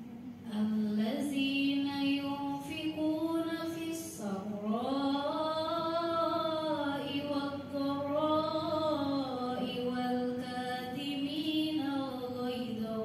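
A woman's voice reciting the Qur'an in the melodic tilawah style over a microphone, holding long notes that slide slowly up and down in pitch. It begins about half a second in.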